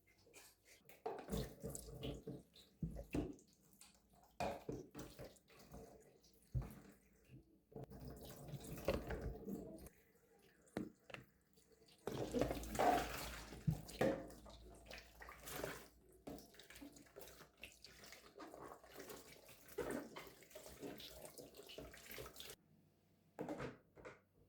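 Water running from a kitchen tap into a sink in short spells, the longest about halfway through, amid frequent small knocks and clatter of things being handled.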